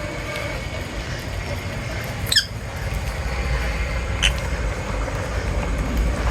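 Two short, high bird chirps about two seconds apart, the first the louder, over a steady low rumble.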